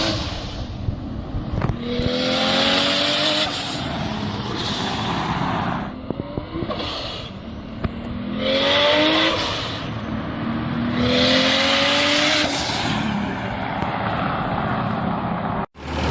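A turbocharged car accelerating hard through the gears. The engine climbs in pitch on about four separate pulls, with a loud turbo hiss over each pull and short breaks at the shifts. The sound cuts off suddenly near the end.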